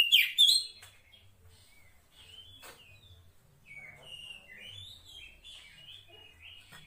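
Female Oriental magpie-robin (kacer poci) calling, the call used to draw a male: a few loud, sharp whistled notes at the start, then a run of softer, varied chirps and whistles.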